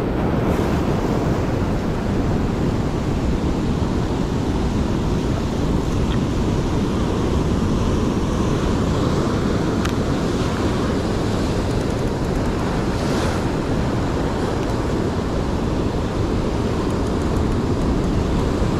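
Ocean surf breaking and washing over shoreline rocks, a steady loud rush, with wind buffeting the microphone.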